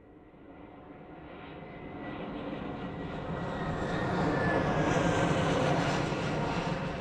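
Steady drone of an aircraft in flight, fading in from silence and growing gradually louder.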